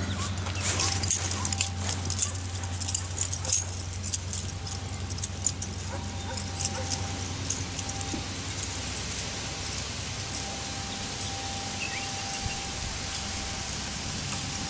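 Keys jingling at the belt of someone walking, a light metallic rattle with each step that thins out in the second half, over a steady low hum.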